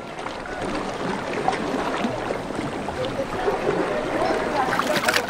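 Steady rushing water, with many short, faint wavering tones over it and a few sharp splashy ticks near the end.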